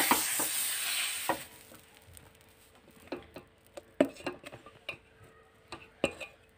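Water sizzling on a hot tawa, a griddle whose non-stick coating has worn off, as a cloth wipes it. The sizzle dies away after about a second and a half, followed by a few light clicks and knocks.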